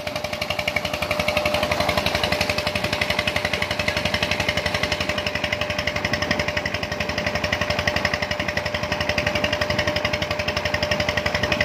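Old Petter-type single-cylinder diesel engine running steadily at a fast, even exhaust beat, driving a tubewell pump. A steady whine rides over the beat, with water gushing from the pump's outlet pipe.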